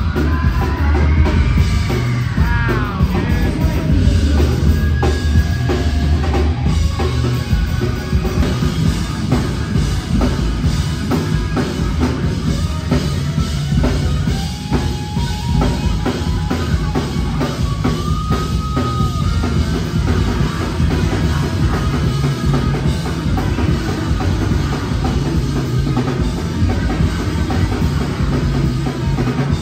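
Live rock band playing loud: electric guitar, bass and a drum kit pounding steadily, with a high note sliding up and back down about a second in.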